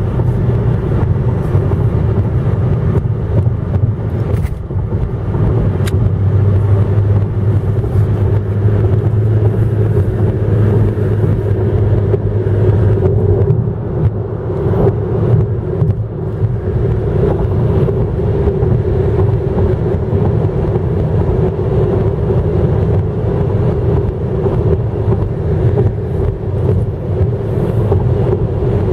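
A car driving at highway speed, heard from inside the cabin: a steady low rumble of road and engine noise.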